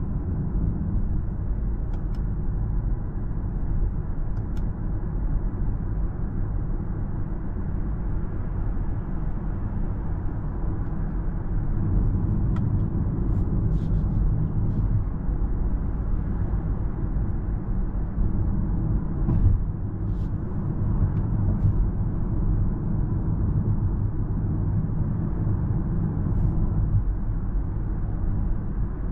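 Steady low road and tyre rumble heard inside the cabin of a Citroen C5 X plug-in hybrid liftback cruising at about 60 km/h.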